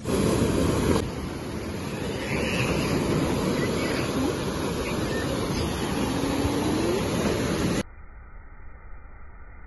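Sea surf washing up a sandy beach: a steady rush of breaking waves and foam, with some wind on the microphone. Near the end it cuts off abruptly to a much quieter, duller hiss.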